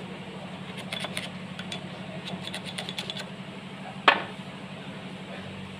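Screwdriver prying and clicking against a steel seal housing as a worn oil seal is worked out, in short runs of light metal clicks, then one loud metallic clank about four seconds in. A steady low hum runs underneath.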